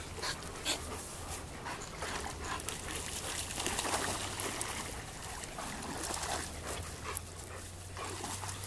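Several German Shepherds wading and splashing in a shallow pond, water churning irregularly around their legs, with occasional short dog whimpers and yips.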